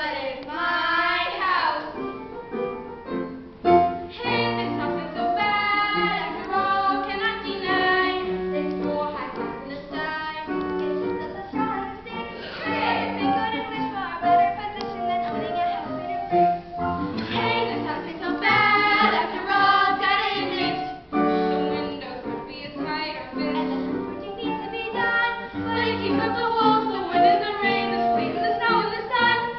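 Young performers' voices singing a musical-theatre song together over instrumental accompaniment.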